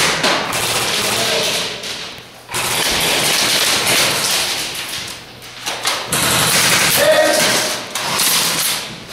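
Airsoft guns firing long, rapid bursts, with BBs clattering against plywood cover, in three stretches broken by short pauses about two and a half and five and a half seconds in.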